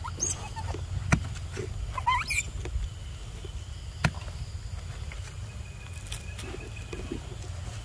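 Young macaques give two short, high squeaks that rise sharply in pitch, one at the start and one about two seconds in. A few sharp clicks and a steady low rumble run underneath.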